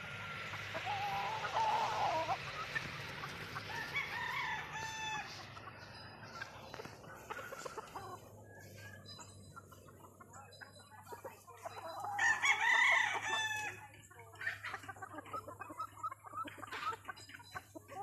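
Roosters crowing with some clucking among them. Several calls come in the first few seconds, and the loudest crow, about two seconds long, comes about twelve seconds in. A faint steady low hum and scattered short clicks lie underneath.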